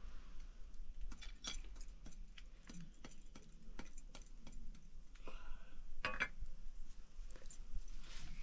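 Metal ladle tapping and scraping against a pot of boiling milk while stirring, heard as scattered light clicks. A brief higher-pitched tone comes about five seconds in, and a quick cluster of louder clicks just after.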